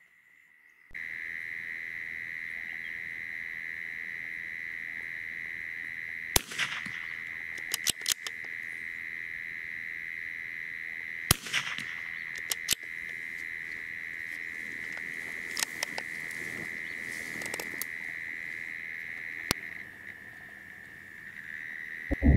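Crickets chirring steadily, with two sharp shots from a .22LR bolt-action rifle fired with standard-velocity ammunition, about five seconds apart. Several fainter clicks follow the shots.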